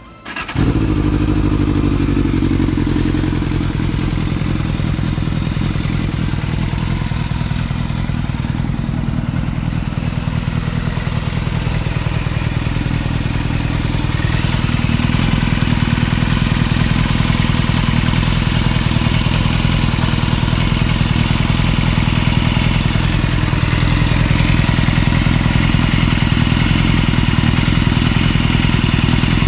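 Yamaha YZF600R Thundercat's inline-four engine catching about half a second in and then idling steadily, getting a little louder about halfway through: the first start after an oil change, circulating the fresh oil.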